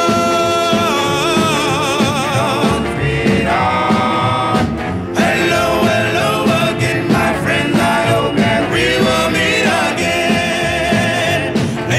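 Music: a song with sung vocals holding long notes with vibrato over a band accompaniment.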